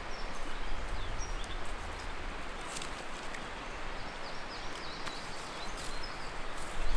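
Small birds chirping in short calls over a steady outdoor hiss, with a few light clicks.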